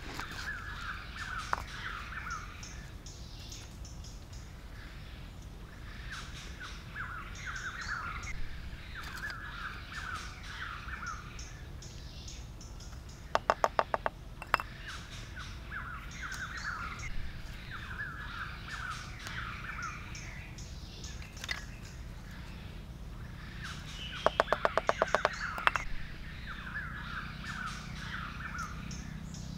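Birds calling in woodland: a chirping call repeated every second or two throughout. Twice, about halfway through and again near the end, a quick run of sharp clacks, about ten in under a second, louder than the bird calls.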